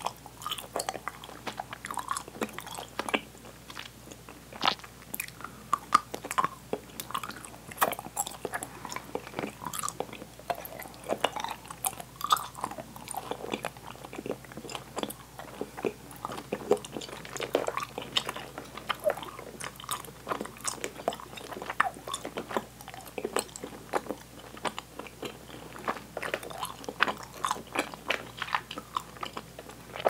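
Close-miked, open-mouthed chewing of sticky Swedish candy: continuous, irregular wet smacks and clicks as the candy sticks to the teeth.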